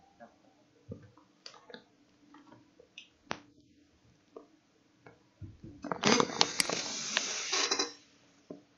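Faint computer keyboard and mouse clicks, then a loud crackling, rustling noise near the microphone lasting about two and a half seconds.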